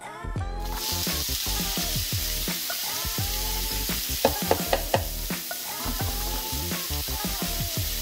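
Diced onion dropped into hot olive oil in a skillet, starting to sizzle and fry suddenly under a second in, with a few louder ticks about halfway. Background music plays underneath.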